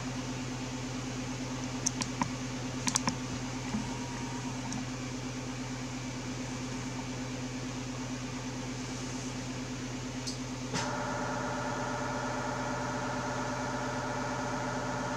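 Steady electrical hum and fan noise from a ham radio station: an Icom IC-9700 driving a Microwave Modules MML144/200S brick amplifier with a cooling fan, with a few light clicks early on. About eleven seconds in, a louder, higher buzz joins in as the amplifier keys up for an MSK144 meteor-scatter transmission on 2 metres.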